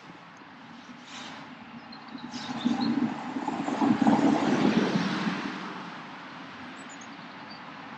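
A gust of wind buffeting the microphone, swelling for a couple of seconds and dying away, with a few faint bird chirps.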